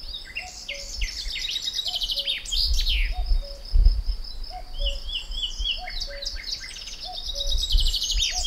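Several wild birds singing and chirping, with a low two-note call, the first note higher than the second, repeating about every second and a quarter. Low rumbling comes and goes underneath.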